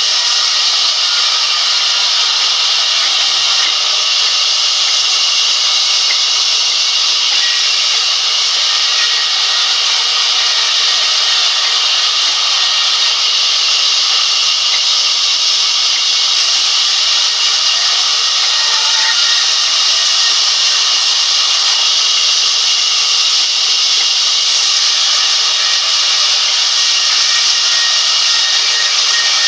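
Sawmill band saw running and cutting through a thick timber plank as workers feed it past the blade: a loud, steady hissing rush.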